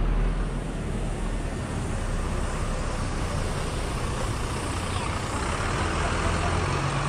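Street traffic noise at a city junction, with a motor vehicle's engine running nearby as a steady low hum under the general road noise.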